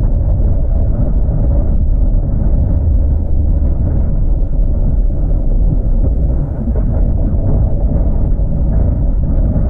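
Van driving: a steady low rumble of engine and road noise.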